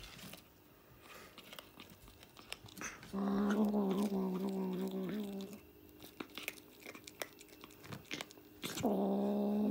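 White kitten chewing and crunching on a boiled snake, with sharp crackling bites throughout. Twice it lets out a long, steady, low growl of two to three seconds while it eats, guarding its food.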